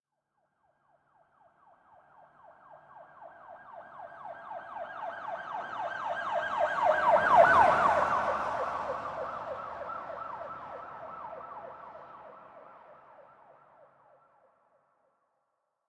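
Police car siren in a fast yelp, about five rising-and-falling sweeps a second. It approaches, passes loudest about halfway through, then recedes and fades out, its pitch dropping slightly as it goes by.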